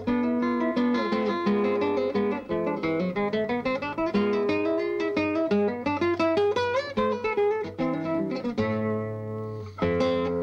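Background music of acoustic guitar playing quick plucked runs and chords; near the end a chord is left ringing and fading before a new chord is struck.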